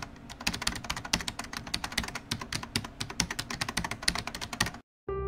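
Rapid computer-keyboard typing clicks, a dense irregular run that stops suddenly shortly before the end. Piano music comes in right after a brief gap.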